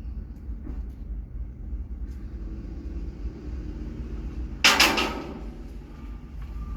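A steady low vehicle rumble, broken about four and a half seconds in by one loud crash that lasts about half a second.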